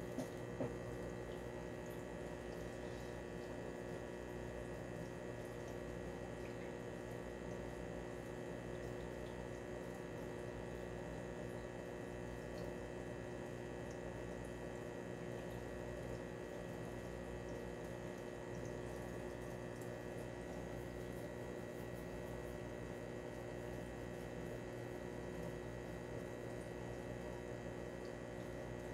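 Aquarium filter running: a steady, fairly quiet hum with water trickling in the tank. A couple of soft knocks come just after the start.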